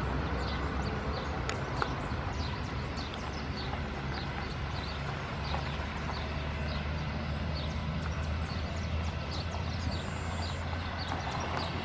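Airbus A319 jet engines running at taxi power, a steady low rumble. Over it, birds chirp repeatedly with short, high calls that fall in pitch.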